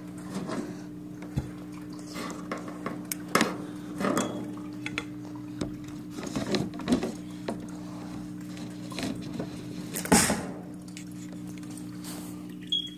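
A steady low hum under scattered hard clicks and knocks, the loudest knock about ten seconds in.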